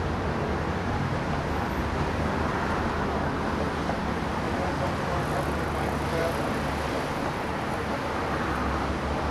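Steady background traffic noise: a continuous low rumble with hiss, unchanging throughout.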